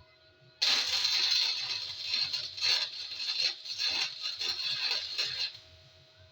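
Electric welder running one weld bead of about five seconds on a steel truck frame seam, a steady crackling sizzle that starts suddenly and cuts off. It is a tack or short stitch joining the shortened frame back into one piece.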